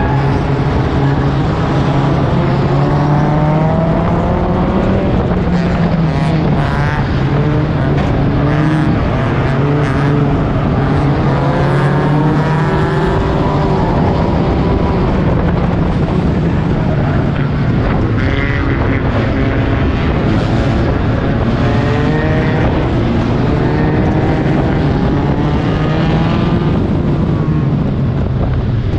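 Four-cylinder Stinger 8 race car engine heard onboard. It runs loud and continuous, revving up and falling back over and over with the throttle, with the engines of the surrounding pack of race cars mixed in.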